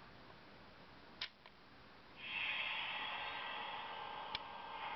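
A click about a second in, then from about two seconds in a steady hiss of steam sound from the locomotive's LionChief sound board, played through its small speaker as the remote pairs with the stationary engine.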